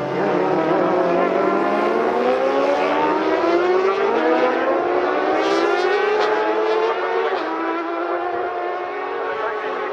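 Racing motorcycle engines at high revs, several at once, climbing in pitch for about seven seconds, then levelling off and easing down as they pass, with a few brief crackles in the middle.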